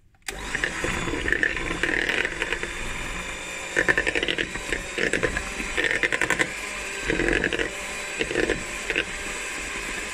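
Electric hand mixer switched on just after the start and running steadily, its beaters churning cubes of room-temperature butter in a plastic bowl, with louder clattering spells every second or so.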